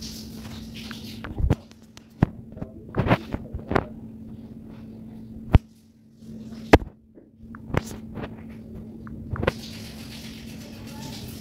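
Irregular knocks and clicks, about eight in all and unevenly spaced, over a steady low hum.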